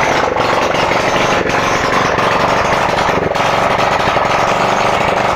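Hero Glamour motorcycle's 125 cc single-cylinder four-stroke engine running steadily, now on a freshly fitted carburettor in place of its fuel injection, its starting problem cured.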